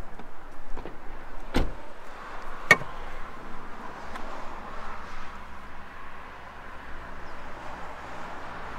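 Two sharp clicks about a second apart as a car's bonnet is unlatched and raised, the second the louder, then a steady background hiss.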